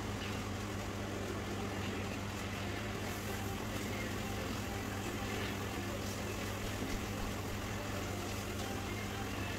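A steady low hum under an even, constant background noise.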